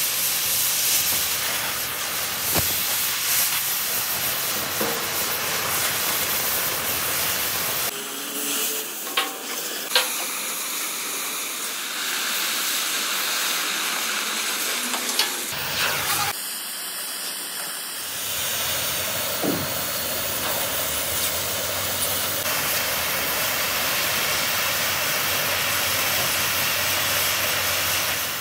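Oxy-fuel gas cutting torch hissing steadily as its jet burns through thick steel plate, with a few short sharp pops.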